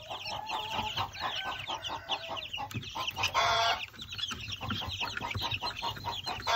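A brooder full of young pullets cheeping, many short high peeps overlapping without a break, with a louder, harsher burst about three and a half seconds in.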